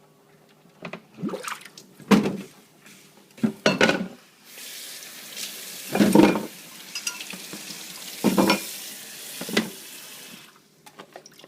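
A kitchen tap runs for about six seconds in the middle, starting and stopping abruptly, amid half a dozen irregular knocks and clatters of kitchen items.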